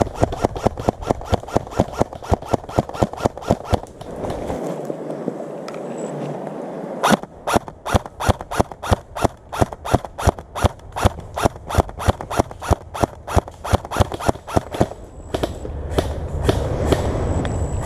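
Airsoft gun firing a long string of rapid shots, about five a second, as suppressive fire. The shots stop for a few seconds about four seconds in, then resume.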